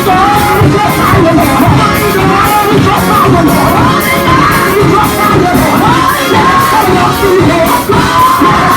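Loud upbeat music with singing voices over a steady drum beat, mixed with crowd noise.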